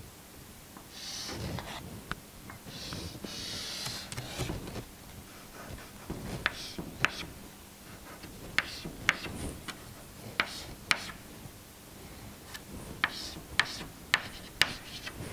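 Chalk drawing on a chalkboard: a few scraping strokes in the first several seconds, then a series of sharp taps and clicks as short lines of a circuit diagram are put down.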